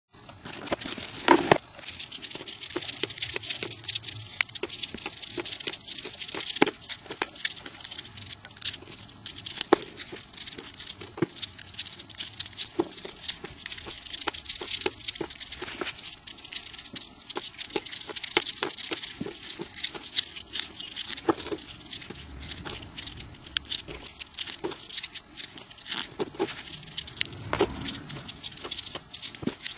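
Sped-up rustling and crinkling of folded paper origami units as they are handled and pushed onto one another: a dense, continuous run of quick crackles and ticks.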